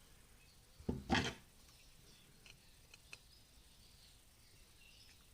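Small carburetor parts being handled on a workbench: two short clattering knocks about a second in, then a few faint light ticks.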